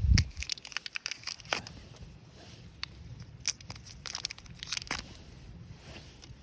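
Irregular crackling and crinkling clicks, several a second at first and thinning out, with a low thud at the very start.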